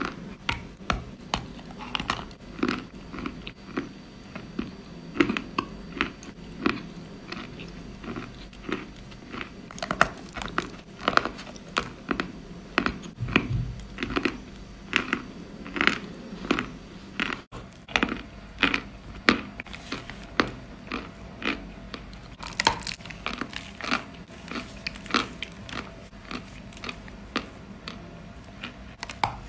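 Close-up chewing of a crunchy cookie with chocolate cream: crisp crunches about twice a second, with wet mouth sounds between them.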